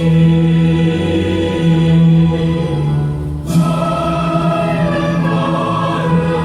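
Music with a choir of voices singing long held notes, briefly broken about three and a half seconds in.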